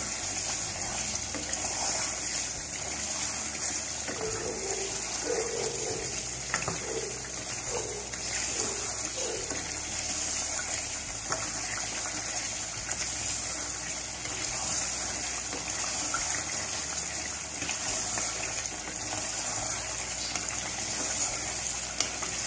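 Steady hiss of thick mutton gravy bubbling on the heat in a steel saucepan while it is stirred with a wooden spoon.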